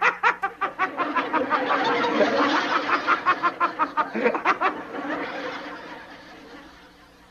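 A man laughing heartily in a long run of rapid, loud 'ha-ha' pulses, which fade away over the last two seconds.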